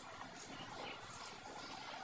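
Close-miked eating sounds: chewing with several short, soft wet mouth smacks and crackles while eating fried bhatura bread.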